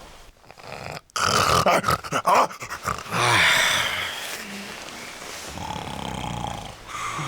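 Loud, exaggerated snoring, rough and rasping, starting about a second in and loudest over the next few seconds before settling lower.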